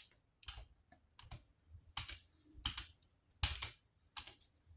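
Paint brush working gel matte medium onto print paper: a faint series of short, irregular brush strokes, roughly one a second.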